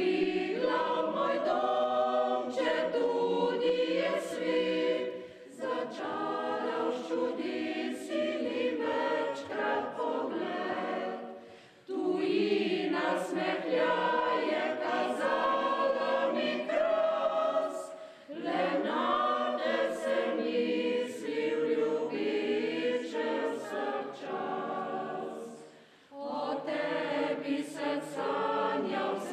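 Mixed church choir of women's and men's voices singing together, in phrases separated by four brief pauses.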